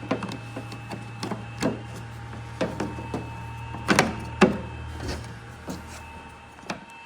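Plastic trim parts of a car's trunk lid knocking and clicking as they are handled and pressed back into their clip holes, with the sharpest snaps about four seconds in. A steady low hum runs underneath and fades out near the end.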